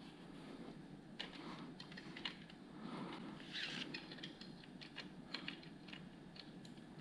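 Faint, irregular small clicks and ticks of plastic LEGO Technic pieces being handled and fitted together.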